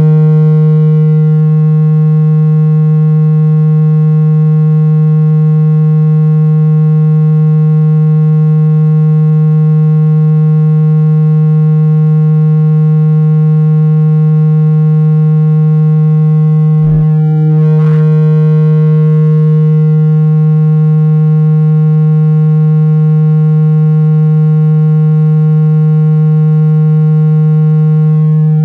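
A steady, loud low tone of about 160 Hz with a buzzy stack of overtones: a speaker-cleaning tone played to shake liquid and dust out of a phone's loudspeaker. It breaks off briefly about 17 seconds in, with a quick rising sweep just after.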